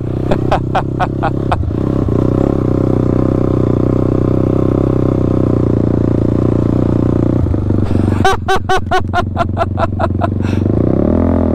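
ATV engine running steadily under way, with two stretches of rapid pulsing, one at the start and one about eight seconds in.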